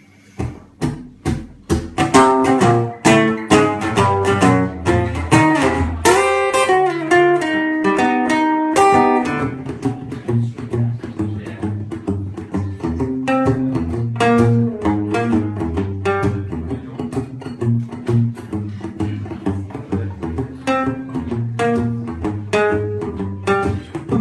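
Solo acoustic guitar playing a rockabilly tune, sharp strummed and picked notes with a steady rhythm, without singing.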